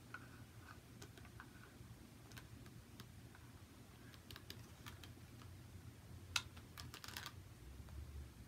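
Faint scattered clicks and taps of hard resin doll parts: a horn piece knocking against a ball-jointed doll's resin head as it is tried on, with one sharper click about six seconds in and a quick run of clicks just after.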